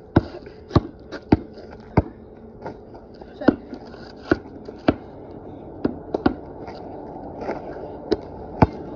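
Basketball bouncing on a concrete driveway: about a dozen sharp slaps at uneven spacing, roughly one or two a second.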